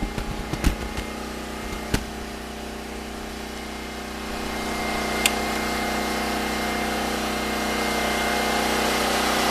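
Predator 6500 generator's single-cylinder engine running at steady speed under about a 1500-watt load, growing slightly louder after about four seconds. A few light clicks and taps come in the first two seconds, and one sharp click about five seconds in.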